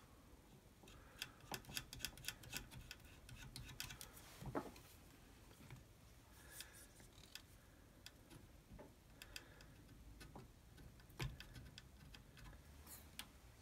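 Faint, scattered small clicks and light taps from hands working a wooden scythe-snath grip and a plastic glue bottle during a wood-glue repair.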